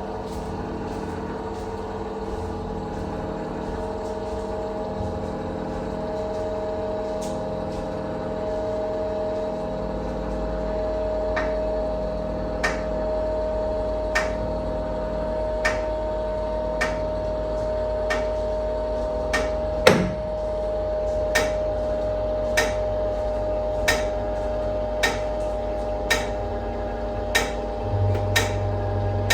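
NordicTrack treadmill's incline motor and mechanism running with a steady hum, and a metallic ding that repeats about every second and a half from about eleven seconds in. The ding is the incline noise, which the owner traces to loose incline-motor bolts and frame screws and a dry incline-motor bar.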